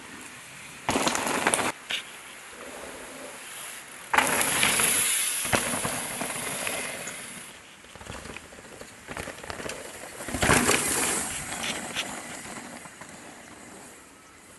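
Downhill mountain bikes passing over rock and dirt: noisy bursts of tyre crunch and bike rattle, the longest starting about four seconds in and fading over a few seconds, another shorter one near the two-thirds mark.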